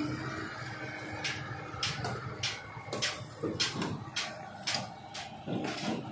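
Footsteps on a steel rebar mesh and its formwork: a string of short, sharp taps, about two a second, starting about a second in.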